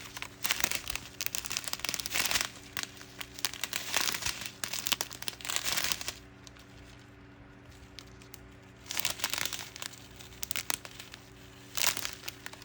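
Plastic packaging of a diamond painting kit crinkling and rustling as it is handled, in irregular bursts with a pause of about three seconds near the middle.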